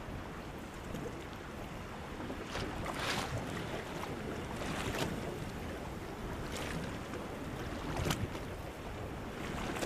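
Wind buffeting the microphone over water lapping around a small boat. A few brief swishes stand out, about three, five and eight seconds in.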